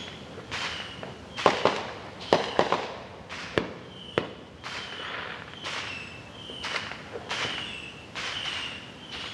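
Fireworks going off: a cluster of sharp bangs and crackles between about one and a half and four seconds in, with single pops later. Throughout, a short high call repeats about once a second.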